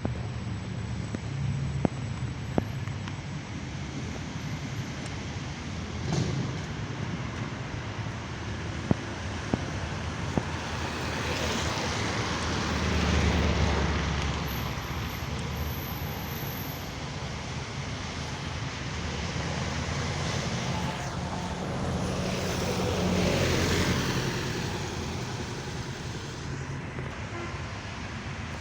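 Bus engine idling with a steady low hum, while two passing vehicles swell up and fade away, one about halfway through and one later on.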